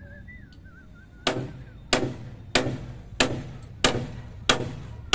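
A faint wavering high tone, then about a second in a run of sharp, evenly spaced percussive hits, roughly one and a half a second, each with a short ringing tail.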